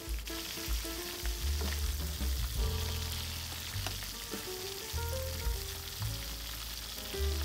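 Green plantain slices deep-frying in hot vegetable oil, a steady sizzle, stirred with a slotted spatula that makes a few light scrapes against the pan. Soft background music with a bass line plays underneath.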